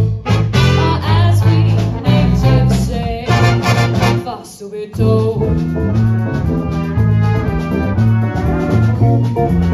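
Big band playing swing jazz with brass and saxophones, and a female vocalist singing over it. The band nearly stops for a moment about four and a half seconds in, then comes straight back in.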